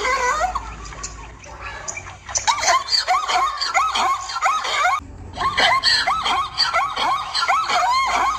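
Zebra calling: a quick series of short, high calls that rise and fall in pitch, in runs broken by brief pauses about two and five seconds in.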